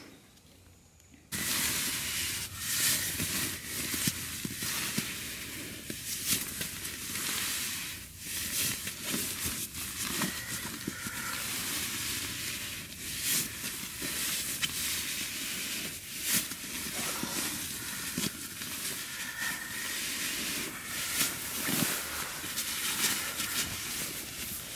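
Nylon shell of a Marmot CWM down sleeping bag rustling continuously as it is stuffed by hand into its stuff sack, with frequent sharper crinkles. The rustling starts suddenly about a second in.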